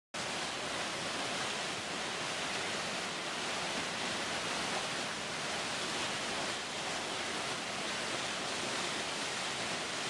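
River whitewater rapids rushing, a steady even wash of water noise.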